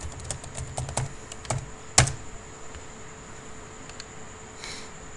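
Computer keyboard being typed on: a quick run of keystrokes over about two seconds, ending in one louder, sharper key hit.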